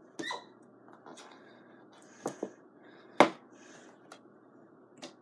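Handling noise from a paper poster on a carpeted floor: a few short taps and knocks spread through the moment, the loudest a little past three seconds in.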